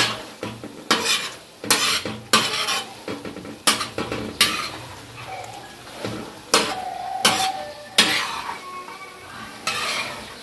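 Metal spatula scraping and knocking against a flat tawa griddle as mutton chops are stirred and turned in hot oil, in irregular strokes about once a second, with the oil sizzling steadily between them. The meat is frying on a raised flame.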